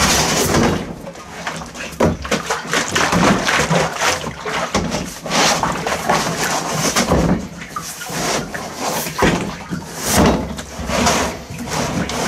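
Oil sloshing inside a plastic jerrycan that is being shaken hard by hand, coming in uneven surges.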